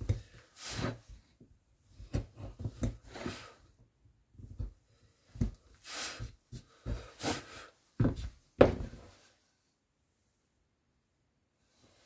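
Hand carving tool cutting into wood in short, irregular scraping strokes, with light knocks from handling the work. The cutting stops about nine seconds in.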